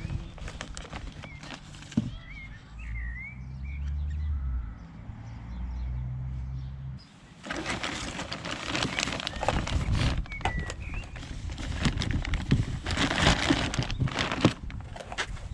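Birds chirping now and then, with a low rumble in the first half. About halfway through, a dense run of clicking and clattering starts and is the loudest sound to the end.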